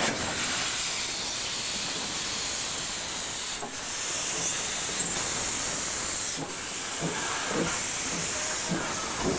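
Steam hissing steadily from a standing steam locomotive, with two brief dips, a little under four seconds in and again about six and a half seconds in.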